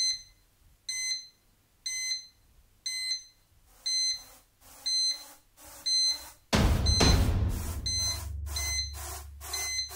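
A bomb countdown timer beeps, short high electronic beeps about once a second that quicken to about twice a second. About six and a half seconds in, a loud low rushing rumble comes in under the beeps.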